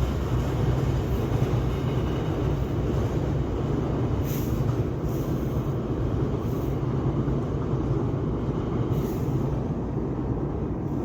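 Freight train rolling past at speed: a steady rumble of wheels on rail, with a few brief high hisses about four and nine seconds in.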